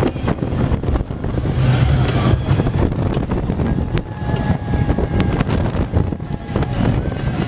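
Mine-train roller coaster running along its steel track, heard from a car: a steady loud rumble of wheels on the rails mixed with wind buffeting the microphone, with a few sharp clicks.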